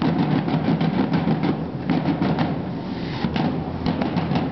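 A drum corps of several drummers beating field drums together in a fast, steady rhythm of many rapid strokes.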